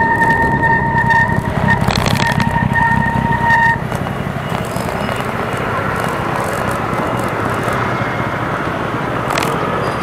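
Bicycle brake squealing in one steady high tone as the bike slows, cutting off sharply about four seconds in as it comes to a stop. Wind and road rumble run under it, followed by quieter street noise.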